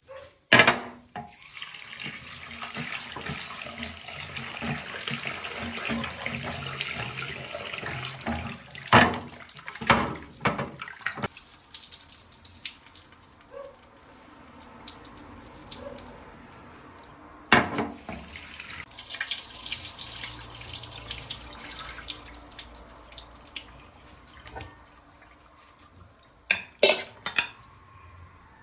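Tap water running into a sink, with things being rinsed under it. The water runs for about ten seconds, stops, then runs again for a few seconds; several sharp knocks of things set down or handled in the sink come in between, with the loudest about halfway through.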